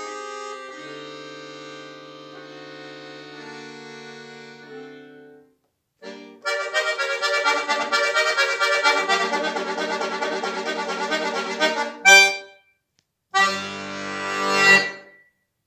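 Solo chromatic button accordion playing: soft held chords that fade away, a brief pause, then a loud, fast passage of dense notes ending on a sharp accented chord. After a short stop, a final chord swells up to a peak and cuts off.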